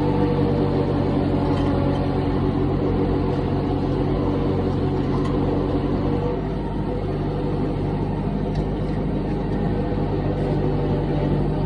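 Compact excavator's diesel engine running steadily, a constant hum with no pauses.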